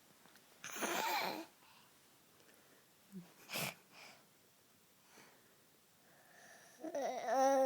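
A baby sneezing: a noisy burst with a little voice in it about a second in, then a shorter, sharper one a few seconds later. Near the end the baby starts babbling.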